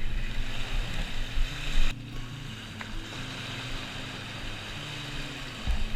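Wind rumbling on the microphone over the wash of small waves on a beach. The louder rush cuts down suddenly about two seconds in, and a low bump comes near the end.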